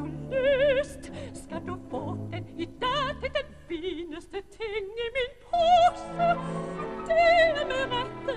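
A woman singing opera in Danish with a wide vibrato, in short phrases, over orchestral accompaniment.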